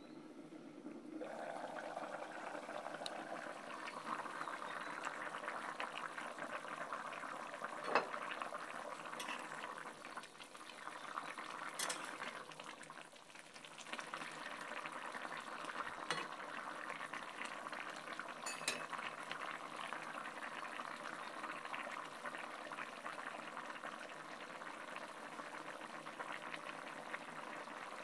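Fish broth with eggplant and potatoes bubbling and boiling in a metal pot: a steady bubbling hiss, with a few sharp clinks of a ladle against the pot.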